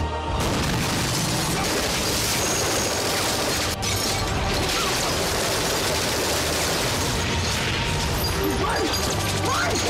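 Action trailer soundtrack: loud, dense music mixed with booming impact effects, with a brief drop about four seconds in.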